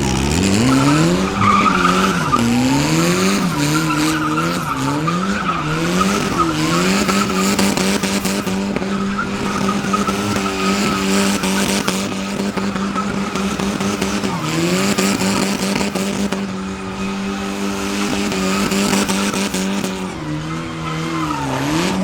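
Car engine revving up and down several times, then held at high revs for long stretches while the spinning tyres squeal in a burnout. The revs dip briefly about two thirds through and fall away near the end.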